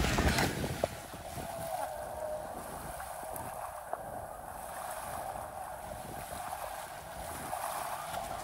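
A 50-inch fiberglass RC speedboat running at full speed on 8S electric power, its brushless motor giving a steady whine over wind and water noise.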